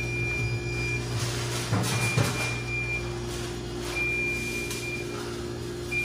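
Steady hum of a small neighbouring refrigerator's compressor running. The Beverage-Air unit's own compressor is not running. A few knocks from handling the cabinet come about two seconds in, and a faint high tone comes and goes about every two seconds.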